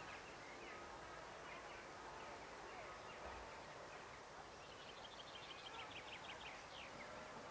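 Faint small birds chirping, with short quick chirps throughout and a rapid trill about five seconds in.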